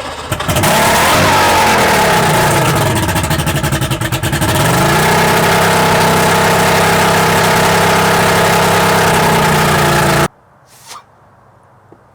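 Mercury Black Max 200 V6 two-stroke outboard catching and running on old gas skimmed from separated tank fuel. Its revs fall away over the first few seconds, dip briefly, then hold a steady idle before the sound cuts off suddenly near the end.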